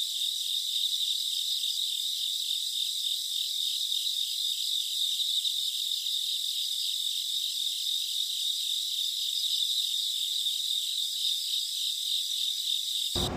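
Crickets chirping in an even, steady pulse of a few chirps a second, all high in pitch, cutting off abruptly near the end.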